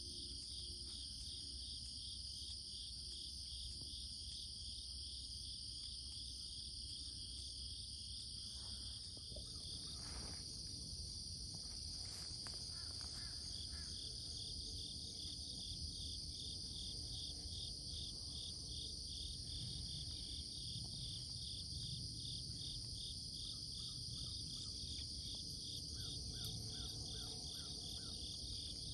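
Chorus of crickets and other insects: a steady high-pitched trill with a rapid pulsing chirp beneath it that stops for a few seconds near the middle. A few faint short chirps come through about halfway and near the end.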